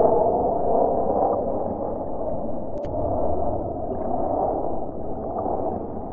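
Fighter jet's engine noise from high overhead, a steady rushing rumble that slowly fades as the jet flies away.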